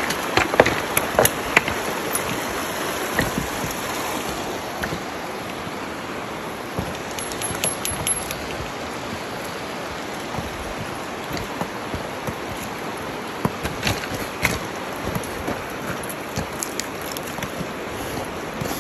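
Steady rush of a creek flowing over a rocky streambed, with scattered clicks and crunches of footsteps on loose stones, most of them near the start and again about two-thirds through.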